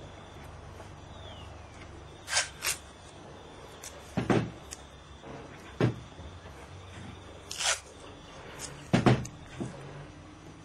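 Tools and fittings being handled on a kayak deck: a series of sharp knocks and clicks, about one every second or two, some dull thuds and some sharper clacks.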